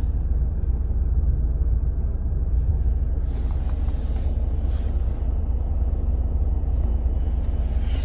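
Steady low rumble inside a car's cabin from the running vehicle, with a few faint clicks.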